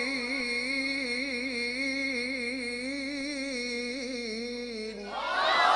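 A male Qur'an reciter's voice holds one long, slightly wavering note in maqam Nahawand, drawing out the end of a verse. Near the end a louder swell of voices with rising pitch comes in.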